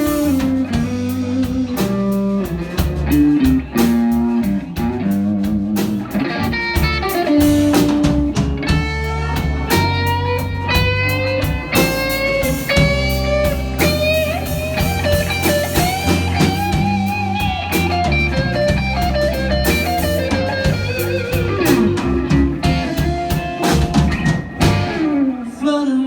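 Live blues band playing a slow blues: an electric guitar solos with bending notes over bass and a drum kit.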